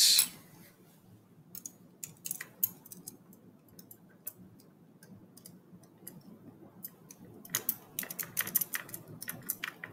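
Stirring rod clinking and scraping against the inside of a glass test tube while sodium chloride is mixed into distilled water to dissolve it: irregular light clicks, sparse at first and coming faster and closer together about seven and a half seconds in.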